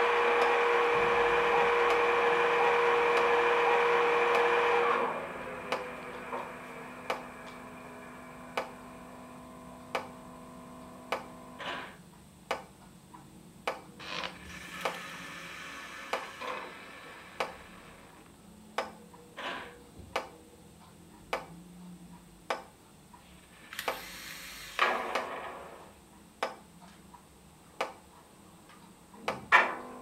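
ESU sound decoder of an Accurascale OO-gauge class 92 electric locomotive model playing locomotive sounds through its small speaker. A loud steady running sound with a held tone cuts off about five seconds in, leaving a regular ticking about once a second. Two short air hisses come in the middle and a louder clack near the end.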